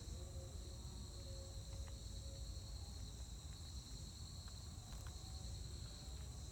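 Steady, faint chirring of insects such as crickets over a low rumble, with a few faint clicks.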